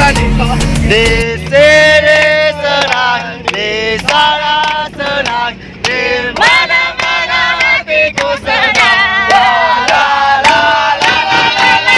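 A group of men and women singing loudly together. Recorded music with a heavy bass beat plays under them and cuts off about a second in.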